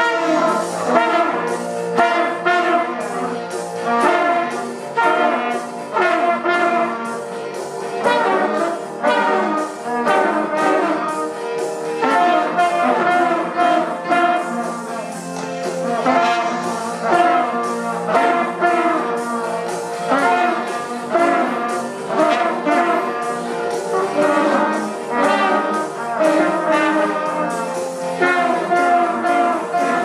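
A beginner ensemble of plastic cornets playing a tune together in phrases of held and moving notes.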